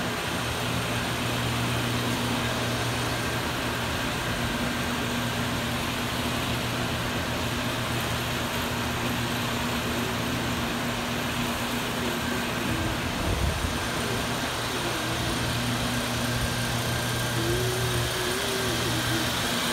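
Large livestock-barn ventilation fans running with a steady hum.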